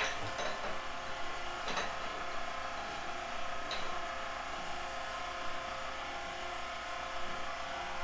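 Steady machine hum with a few sharp metal clinks, about a quarter-second, two and four seconds in, as a hose coupling is worked onto the outlet valve of a stainless steel bulk milk tank.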